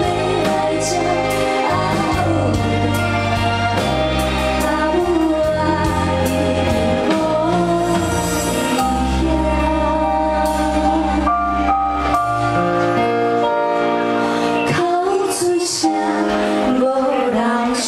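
A female vocal duo singing with live band accompaniment of bass, keys and cymbals. The deep bass drops out about two-thirds of the way through, leaving the voices and higher instruments.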